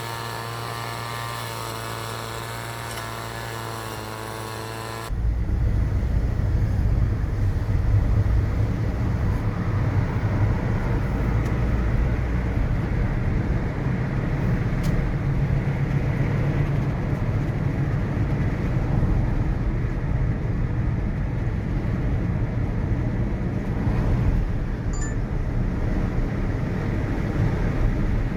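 A steady, even-pitched humming drone that cuts off abruptly about five seconds in, giving way to a louder, continuous low rumble of city road traffic.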